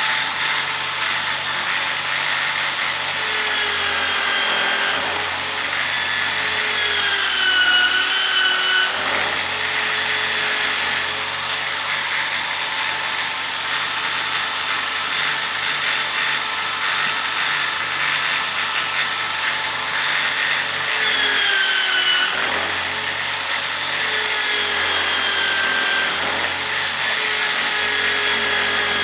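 Homemade bench drill running steadily, its bit cutting into wood to make small wheels. The motor's whine dips in pitch briefly twice and then picks back up.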